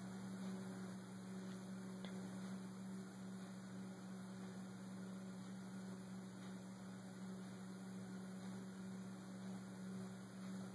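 Steady low electrical hum with a faint even hiss, the recording's background noise; no other sound.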